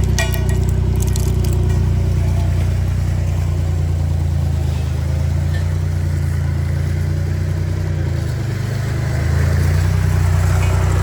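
Road roller's engine running steadily, dipping slightly and picking up again about nine seconds in, with a few sharp cracks right at the start.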